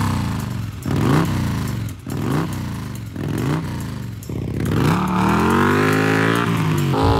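Indian FTR750 flat-track race bike's V-twin engine revved in sharp throttle blips, about five in a row roughly a second apart, then held at high, rising revs as the bike accelerates, with a drop in pitch near the end as it shifts up.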